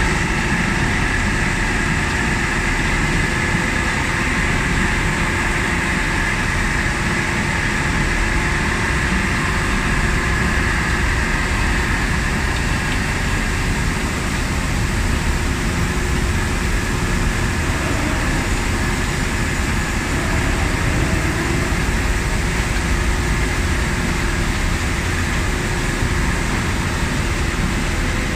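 Heavy machinery at an iron sand processing plant running continuously: a loud, unbroken mechanical noise with a steady high whine over a low rumble, unchanged throughout.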